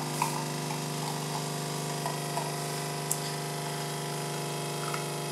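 Cremesso Compact One capsule coffee machine's pump humming steadily while it brews a Caffè Crema, coffee running into the glass.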